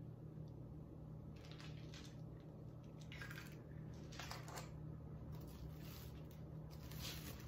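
Raw eggs being cracked open and their shells handled over a bowl: soft crackles and wet handling sounds a few times, over the steady low hum of a bread machine kneading dough.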